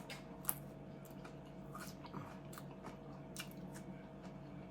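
Close-up mouth sounds of a person chewing food, with scattered soft crunches and wet clicks; one sharper click about half a second in.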